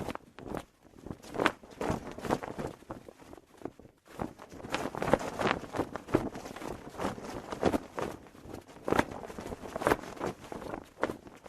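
Cloth flag flapping in the wind in irregular bursts, some louder than others.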